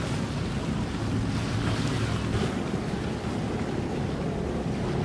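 Wind buffeting the microphone over open water, with a steady low hum of boat motors underneath.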